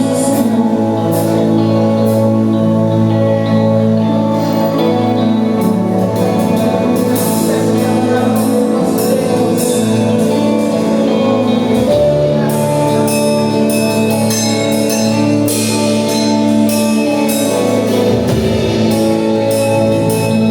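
Live worship music from a church band: sustained pitched chords with frequent sharp percussion hits, the hits coming more often in the second half.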